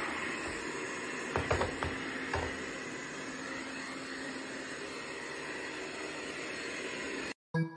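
Robot vacuum cleaner running with a steady whirring hiss, with a few knocks about one and a half to two and a half seconds in.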